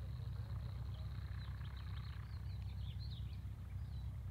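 Birds chirping in a quick run of short calls over the low, steady drone of a taxiing Cessna light aircraft's piston engine at low power.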